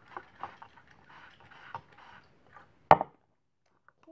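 A stick stirring glue and water in a plastic cup, with irregular scrapes and light taps against the cup, then one sharp knock about three seconds in.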